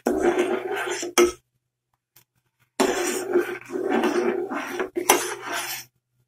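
Red sugar syrup bubbling at a boil in a metal saucepan, stirred with a slotted metal spatula that clinks against the pot a couple of times. The sound cuts out completely for about a second and a half in the middle.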